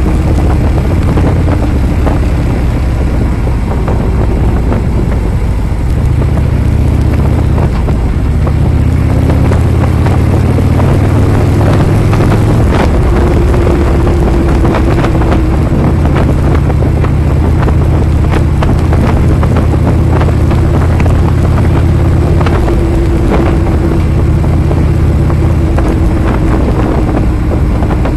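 Harley-Davidson V-twin motorcycle engine running under way, with heavy wind buffeting on the microphone. The low engine note swells about six seconds in, eases around twelve seconds, then swells again until near the end.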